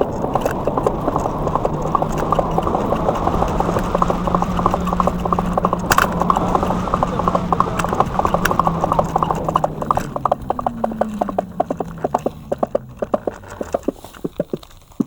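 Synthetic engine sound from the EUC World AVAS app, played through the Kingsong 16X electric unicycle's speakers: a rapid ticking pulse over a steady low note. From about ten seconds in, the note falls in pitch and the sound fades as the wheel slows.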